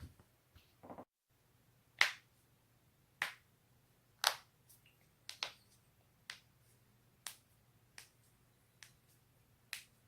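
Human joints cracking: about ten sharp pops, roughly one a second, the loudest about two and four seconds in.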